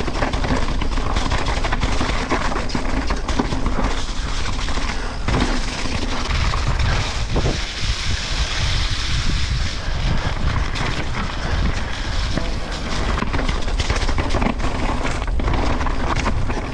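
Downhill mountain bike descending a wet dirt trail: tyres rolling and skidding over dirt and roots, with the bike rattling and knocking over bumps throughout, and wind buffeting the action-camera microphone.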